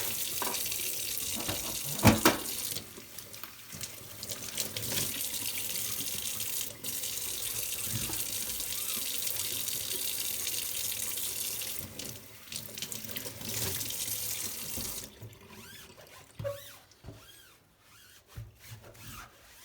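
Water tap running into a sink, with a sharp knock about two seconds in; the water shuts off about fifteen seconds in, leaving a few small clicks and knocks.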